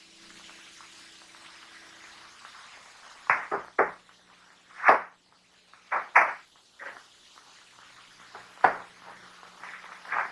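A series of irregular sharp knocks and clacks, about nine in all, starting about three seconds in and loudest about five seconds in, over a faint steady low hum.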